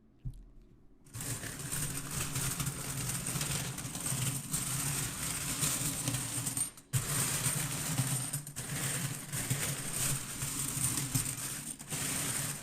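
Franklin half-dollar coins clattering continuously over a steady low hum. It starts about a second in and stops briefly near the middle.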